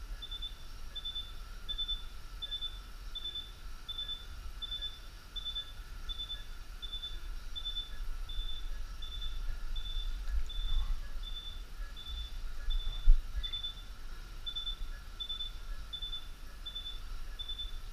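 Surgical patient monitor giving its pulse beep, one short high beep per heartbeat at an even rate a little under twice a second, over a steady low equipment rumble. One sharp knock about two-thirds of the way through.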